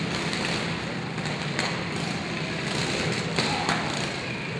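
Riding lawn mower engines running with a steady hum, with a few sharp knocks about a second and a half in and twice more near the end.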